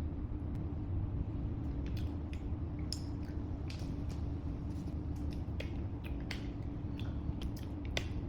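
A steady low hum with many small, irregular clicks scattered over it.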